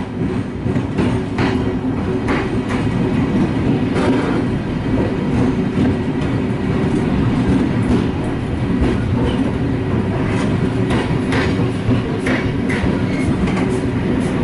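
Train running on the track: a steady rumble with irregular clicks and knocks of the wheels over rail joints (clickety-clack).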